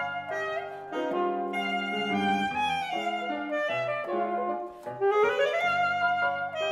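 Saxophone and grand piano playing classical chamber music: a held saxophone melody over piano chords, with a quick rising run about five seconds in.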